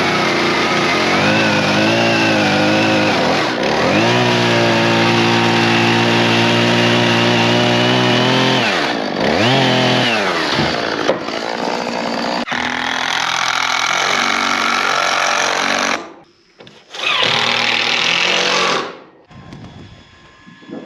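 Power saw running at a steady pitch, the motor dipping and recovering twice as if loaded. It stops suddenly near the end, runs again for about two seconds, then cuts off.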